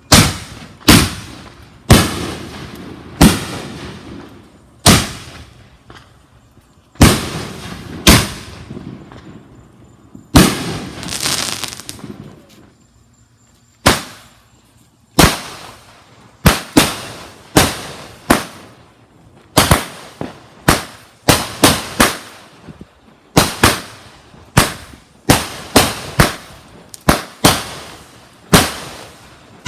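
Fireworks going off: a long series of sharp bangs, each trailing off in a fading crackle. They come about once a second, pause briefly a little before halfway, then come faster, close to two a second.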